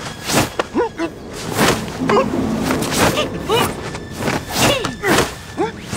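Martial-arts fight sound effects: whooshing swings and thumping blows about twice a second, mixed with short yelps and grunts from the men being struck.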